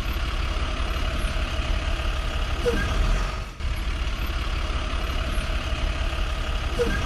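Backhoe loader's heavy engine running steadily as it drives, a low continuous rumble that dips briefly about halfway through.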